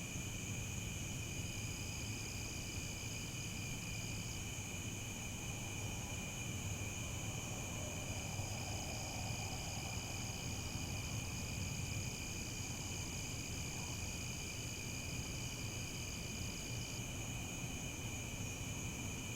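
Crickets chirping in a steady, continuous chorus, several overlapping voices at different pitches. A higher-pitched voice joins early on, stops, and sounds again for much of the middle. A low rumble runs underneath.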